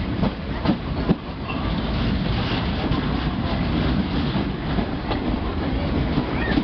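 Duronto Express passenger train running at speed through a station, heard from aboard a coach: a steady rumble, with a few sharp clicks of the wheels over rail joints in the first second or so.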